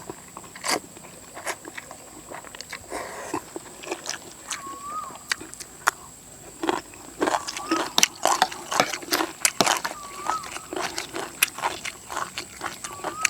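Close-up eating sounds: a person biting and chewing a meal of rice noodles in coconut curry, with many short wet smacks and clicks, busiest in the middle. A short high whistle repeats about every three seconds in the background.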